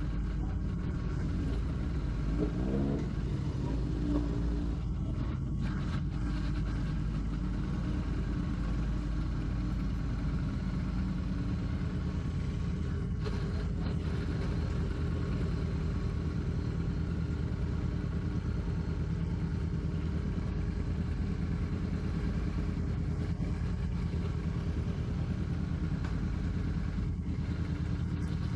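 Royal Enfield Classic 650's 648 cc parallel-twin engine running steadily on the move, with a brief rise in revs about two to three seconds in.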